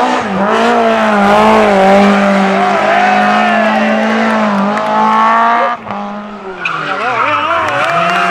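Historic rally car engine running hard, its pitch rising and falling as the car slides, with tyre skidding noise. About six seconds in there is a cut to another car, engine note wavering under a brighter hiss.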